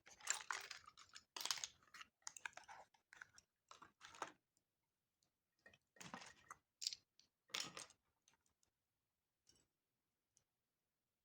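Plastic candy wrappers crinkling and crackling as candies are handled and unwrapped, in irregular bursts, busiest in the first half and thinning out toward the end.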